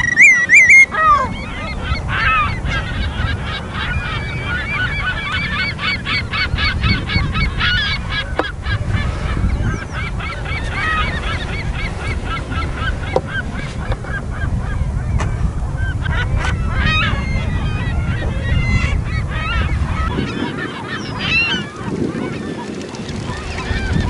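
Wading shorebirds calling: a run of short repeated calls, densest in the first ten seconds and more scattered later, over a steady low rumble.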